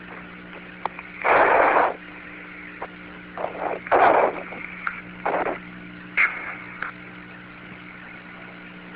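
Astronaut's breathing heard over the Apollo lunar-surface radio link: several short breaths, the strongest about a second in and about four seconds in, over a steady radio hum and hiss, with a few faint clicks.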